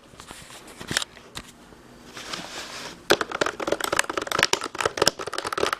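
Typing on a new wireless computer keyboard: a few single key clicks, then from about three seconds in a quick, uneven run of key presses until just before the end.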